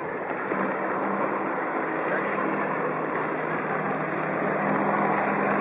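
Jet ski running at speed across the water: a steady engine drone mixed with the hiss of spray, slowly growing louder.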